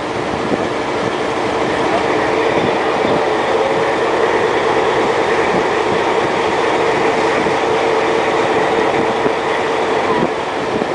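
Diesel locomotive 2200's engine running hard under open throttle: a loud, steady drone that builds a little over the first few seconds, then holds, as the locomotive pulls away along the track.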